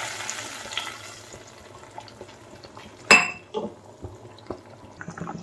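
Hot tempering oil with mustard seeds and curry leaves sizzling as it hits a pot of boiling sambar, the hiss dying away within about a second. The curry then bubbles quietly with small ticks, and a single sharp metallic clink of cookware comes about three seconds in.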